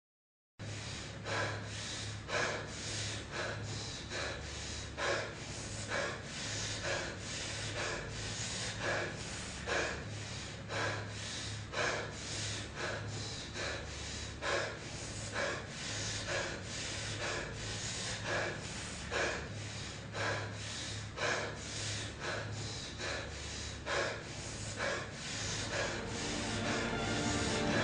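Heavy, rhythmic breathing, quick gasping breaths at about two a second, running on without a break. Music comes in near the end.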